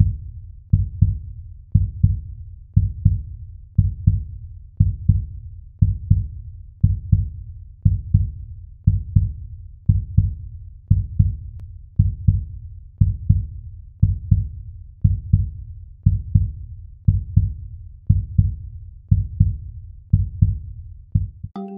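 A heartbeat sound effect over the opening titles: low double thumps, about one pair a second, repeating evenly.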